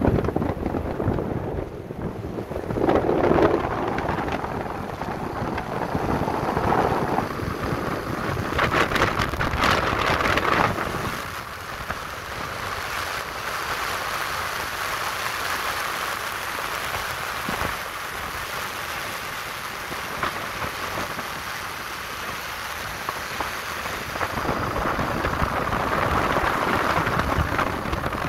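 Wind rushing and buffeting over the microphone of a camera carried on a moving motorcycle, with road and engine noise beneath. The rushing surges louder now and then.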